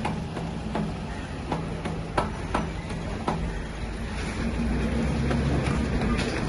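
Bajaj 12.5 kVA diesel generator engine being hand-cranked, with several sharp metallic knocks. Its low rumble grows louder about four and a half seconds in.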